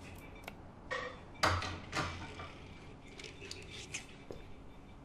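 Light clatter of dishes and cutlery: a few scattered clinks and knocks, loudest about a second and a half in.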